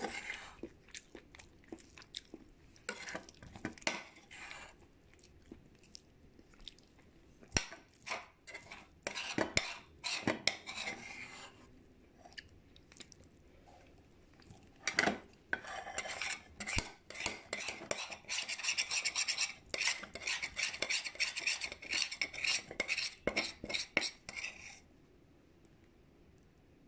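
Eating utensils clicking and scraping against a dish: scattered taps at first, then a dense run of clinks and scrapes from about fifteen seconds in that stops a couple of seconds before the end.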